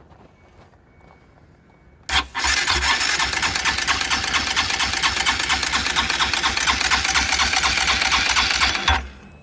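Honda CRF150L single-cylinder engine starting up about two seconds in, running steadily with a fast, even beat, then shutting off about nine seconds in. The engine has a clicking from the cylinder head that persists after the tappets were re-adjusted, which the owner suspects comes from worn rocker arms.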